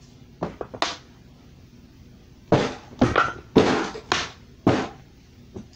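Two short knocks in the first second, then five loud thumps in quick succession, about two a second, from about halfway in.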